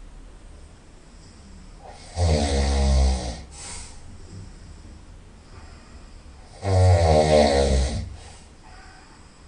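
A person snoring loudly through the nose: two long pitched snores about four and a half seconds apart, each followed by a short, softer breath.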